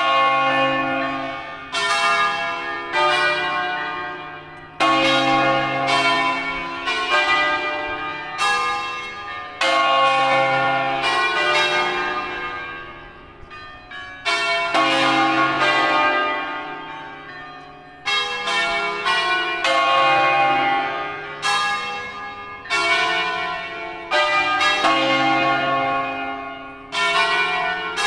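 Church bells ringing: several bells of different pitch struck in turn, about one stroke a second, each note ringing on and fading into the next, with a short pause every four or five seconds.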